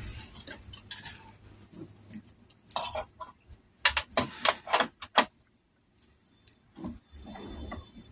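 Sharp clicks and clacks of a TV main board and its metal parts being handled and set onto the sheet-metal back chassis: a couple of clicks about three seconds in, then about six loud ones in quick succession, followed by a soft rustle near the end.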